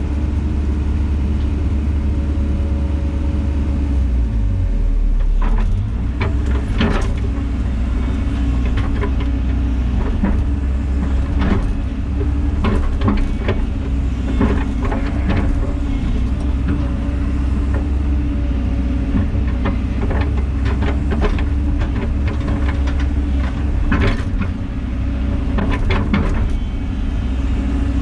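Diesel engine of heavy tracked construction equipment running steadily. From about five seconds in, repeated sharp knocks and clanks are heard over it.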